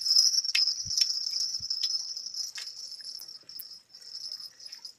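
Crickets chirring in a steady high-pitched drone, with a few faint short ticks over it.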